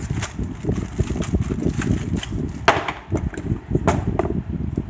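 Packaging rustling and the mini circular saw knocking and clicking as it is unpacked and handled, with a couple of sharper knocks about two and a half and four seconds in.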